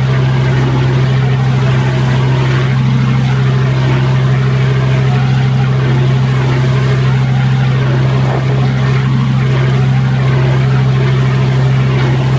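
Passenger ferry's engine running steadily under way: a constant low drone with a steady rushing noise over it.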